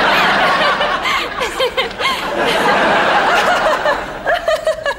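Studio audience laughing at a sitcom punchline, a crowd laugh that holds steady throughout.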